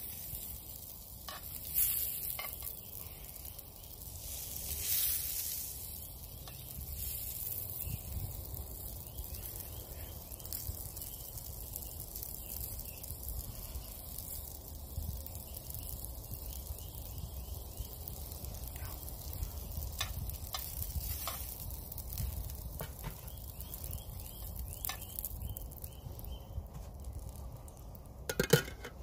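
Sausages sizzling steadily in a small frying pan set on campfire embers, with scattered clicks of metal tongs against the pan. Near the end there is a sharp clink as the tongs set the sausages down on an enamel plate.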